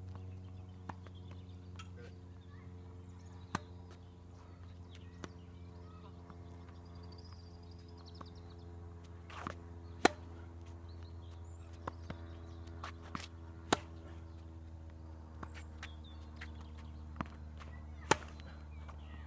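Tennis rally: rackets striking the ball and the ball bouncing on a hard court, heard as sharp pops at irregular intervals. The loudest come about ten, fourteen and eighteen seconds in, when the near player hits. A steady low hum runs underneath.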